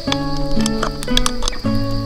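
Background music: held chords that change about every second and a half.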